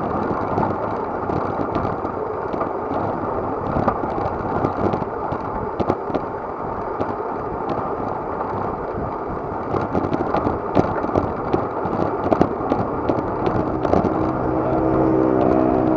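Wind rush and road noise on a moving bicycle's action-camera microphone, with scattered ticks and knocks. Near the end a motor vehicle's engine hum joins in.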